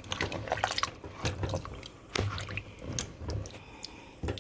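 Liquid in a cooking pot of rice and coconut milk making irregular wet pops and drips as it heats toward a boil.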